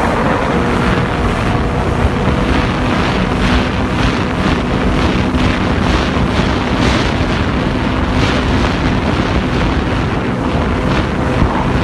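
Jet ski engine running steadily under way, a constant hum under heavy wind buffeting on the microphone, with repeated short rushes of water spray.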